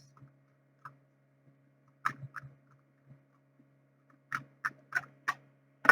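Scattered light clicks and taps, about eight in all, irregularly spaced and more frequent in the second half, over a low steady hum.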